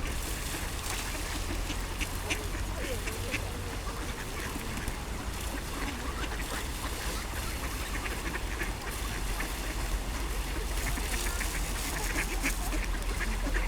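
A large flock of mallards quacking continuously, many birds calling over one another.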